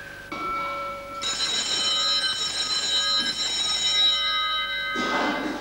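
Altar bells ringing at the elevation of the chalice, marking the consecration: a first ring, then several bells ringing together steadily for about four seconds, ending in a short louder rattle.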